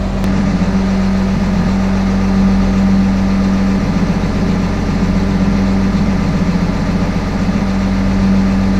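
Rollback tow truck's engine idling steadily.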